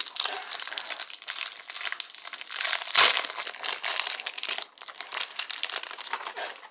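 Plastic wrapping on a baseball card hanger box crinkling and tearing as it is pulled off, with a louder crackle about three seconds in.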